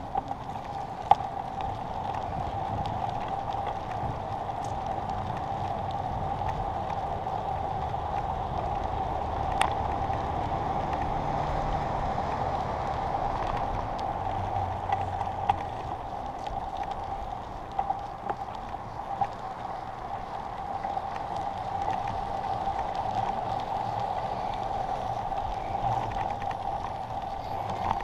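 A bicycle rolling over asphalt, picked up by a camera mounted on its handlebars: a steady rolling noise with a few sharp clicks and rattles.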